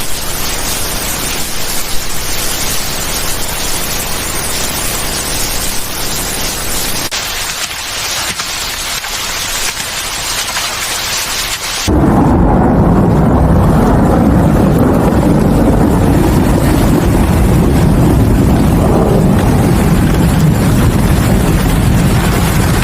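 Steady hiss of monsoon rain, which about halfway through cuts abruptly to a louder, deeper, steady rumble.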